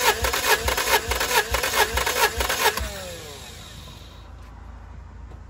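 Starter cranking a Toyota 2ZZ-GE four-cylinder engine, with its spark plugs removed and a compression gauge on one cylinder, so it turns over in even pulses at about four a second without firing. The cranking stops about three seconds in and ends in a short falling whine as the starter spins down.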